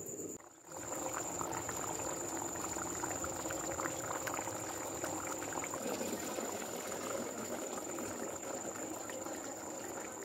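Coconut-based chicken curry boiling hard in a clay pot: a dense, steady bubbling made of many small pops.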